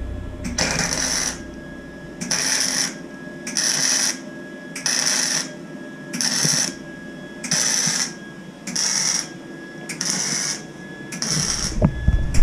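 Flux-core wire welder laying a bracket weld in short stitches: about nine bursts of crackling arc, each under a second, with brief pauses between.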